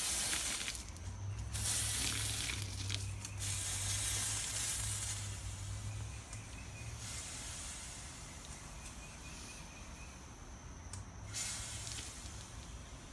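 Hot copper-and-nickel mokume gane billet quenched in water, hissing and sizzling in several bursts, the longest fading over a few seconds, with another short hiss near the end. The quench is meant to soften the work-hardened copper.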